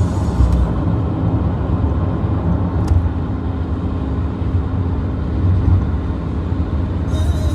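A car driving along the road, with a steady low rumble of engine and tyre noise.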